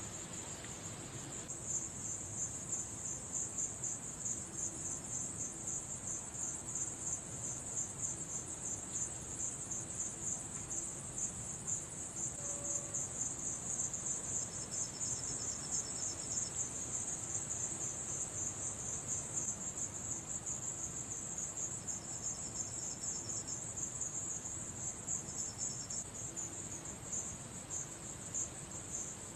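Crickets chirping in a steady, fast-pulsing high trill, with a second, lower insect trill that comes in and drops out three times.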